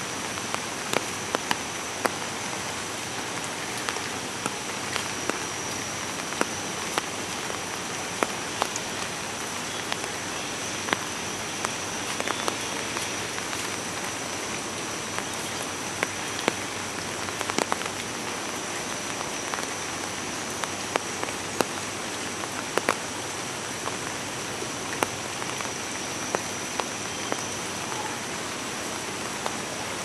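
Steady rain falling, with scattered heavier drops landing at irregular moments, and a thin steady high-pitched tone underneath.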